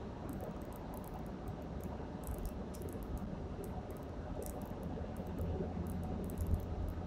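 Steady road and engine noise heard from inside a moving car at highway speed: a low rumble and hum, with faint light ticks and rattles scattered through it.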